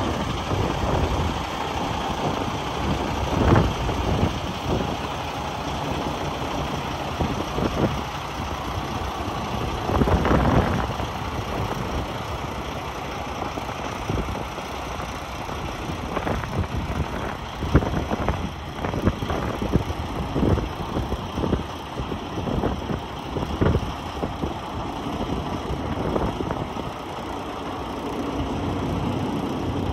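Cummins X15 diesel in a Kenworth T680 semi tractor idling steadily, with gusts of wind buffeting the microphone now and then.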